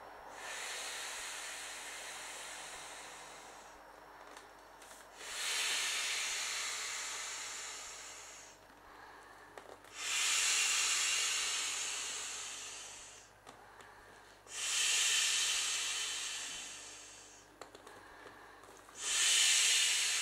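Breaths blown by mouth into the valve of an inflatable clownfish pool toy: five long, airy hissing puffs, each starting strong and fading out, with brief pauses for inhaling between them.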